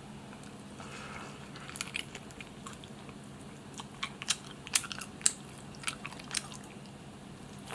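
Close-miked mouth sounds of someone biting and chewing barbecued chicken: wet chewing with a run of sharp, crisp clicks, a couple near two seconds in and a denser cluster from about four to six and a half seconds.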